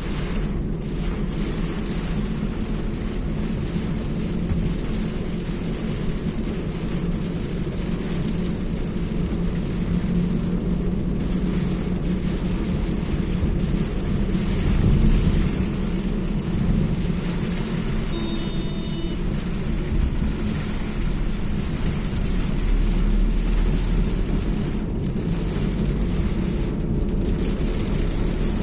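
A car driving in rain: a steady low rumble of engine and road with the hiss of rain over it. A brief high tone sounds about two-thirds of the way through.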